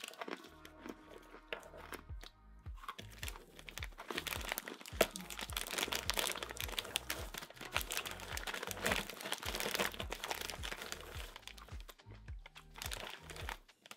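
Foil snack bag of jalapeño pretzel snacks crinkling as it is pulled and torn open, over background music with a steady low beat.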